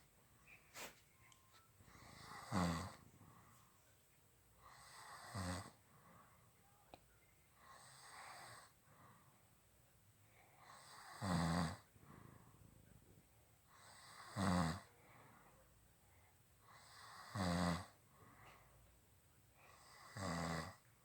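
A man snoring in his sleep: a loud snore about every three seconds, seven in all, with quieter breathing between them.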